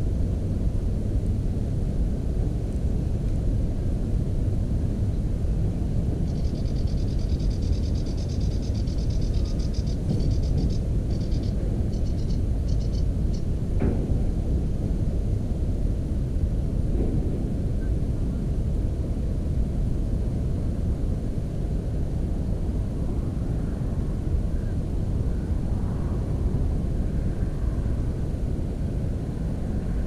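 Savi's warbler reeling: a fast, dry, even trill starts about six seconds in and runs for some four seconds, then breaks into a few short bursts. Under it a steady low rumble, and a single click a little later.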